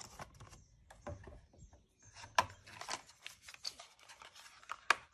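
Small cardboard product boxes being handled and opened: scraping and sliding of card with light rustling, and a couple of sharp clicks, one about halfway and a louder one near the end.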